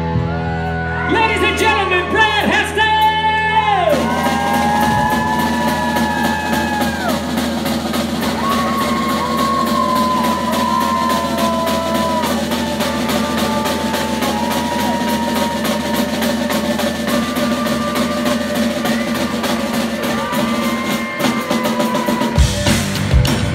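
Live rock band playing: electric guitar and bass over a full drum kit, with held lead notes that bend in pitch during the first few seconds and a steady driving beat. The low end and drumming get heavier near the end.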